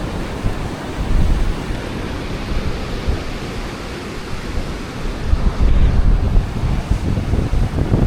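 Strong wind buffeting the microphone in uneven gusts, over the steady wash of surf.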